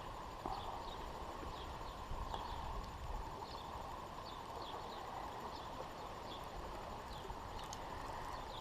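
Outdoor ambience: a low wind rumble on the microphone with faint, short bird chirps repeating irregularly.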